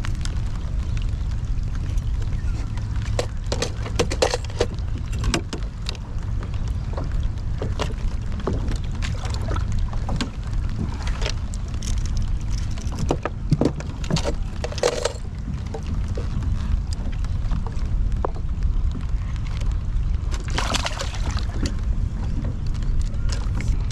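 Handling noise aboard a plastic fishing kayak: scattered clicks and knocks of tackle and a landed fish against the hull, over a steady low rumble, with a short hissing rush near the end.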